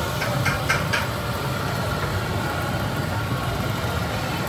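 Eggs frying on a large flat steel griddle over a steady low rumble, with a few light clicks of a metal spatula on the steel in the first second.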